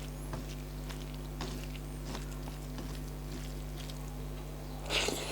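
A person eating close to the microphone: quiet wet chewing and mouth sounds with scattered faint clicks, and a louder wet smack near the end, over a steady low hum.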